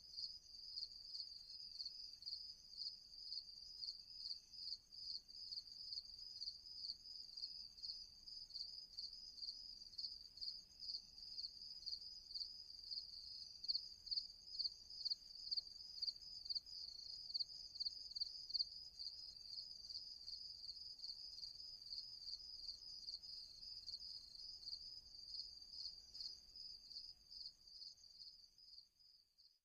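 Crickets chirping in a high, regular pulsing trill, fading out near the end.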